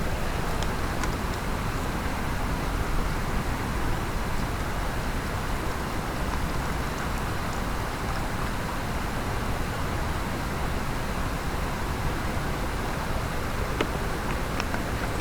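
Mountain stream water rushing steadily over rocks, with a few faint clicks near the end.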